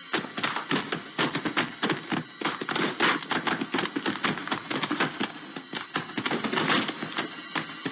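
Film sound effects of a body tumbling down a wooden staircase: a long, irregular run of thumps and knocks against the wooden steps and banister.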